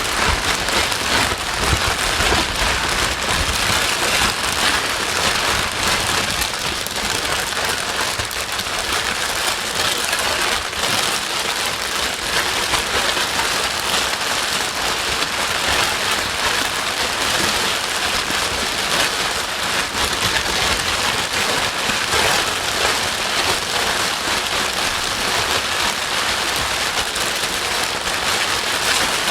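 Steady white noise for sleep, a dense, even hiss like heavy rain with no breaks or changes.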